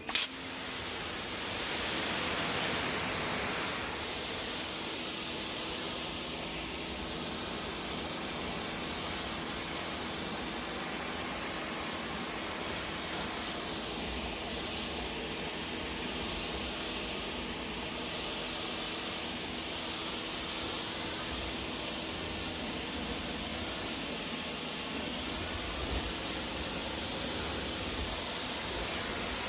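Greenworks 2000 PSI electric pressure washer spraying, a steady loud hiss of the water jet over a faint steady hum, starting abruptly when the trigger is pulled.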